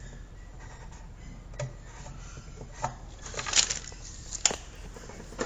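Scattered knocks and clicks of hands handling tools and pipe, with a short clatter about three and a half seconds in and a sharp click about a second later.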